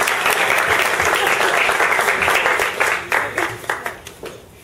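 A roomful of dinner guests applauding. The dense clapping thins to scattered single claps after about three seconds and dies away near the end.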